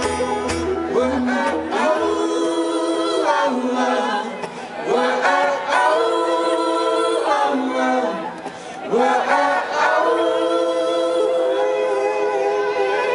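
Live folk-band vocals: several voices singing long held notes together in harmony, in phrases a few seconds long with short breaks between them. The low bass drops out about two seconds in, leaving the voices nearly unaccompanied.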